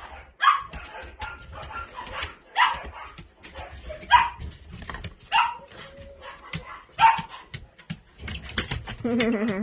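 Dogs barking in a run of short, sharp single barks, about one every second or two, with a person's voice briefly near the end.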